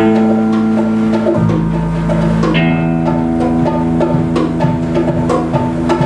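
Live instrumental music: electric guitar holding sustained chords over electronics and light percussion, the chord changing about a second and a half in and again a second later.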